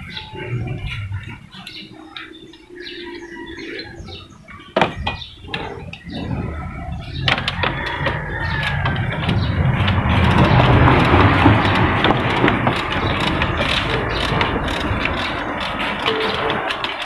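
Hand tools clicking and ratcheting on metal as the radiator fan shroud bolts are worked loose. About seven seconds in, a louder steady rushing noise begins and continues.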